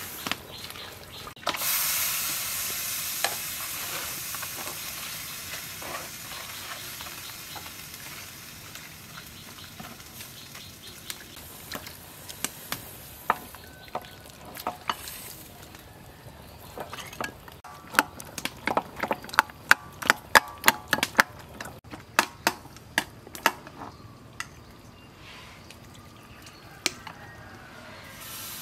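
A hot pot of soup sizzling, with a loud hiss rising suddenly about a second and a half in and fading slowly. Later a metal ladle clinks and scrapes again and again against the metal pot as water spinach is stirred into the broth, the clinks thickest in the middle stretch.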